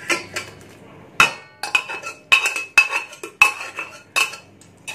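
A metal spoon scraping and clinking against a pressure cooker pot and a steel bowl while boiled peas and potatoes are scooped out. There are about six sharp clanks, each with a brief metallic ring.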